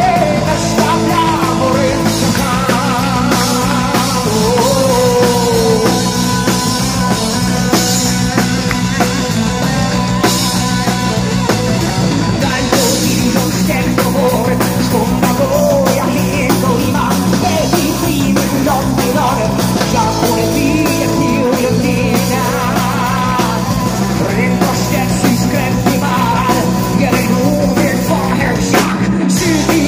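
Live rock band playing: a man sings over electric guitar and a drum kit.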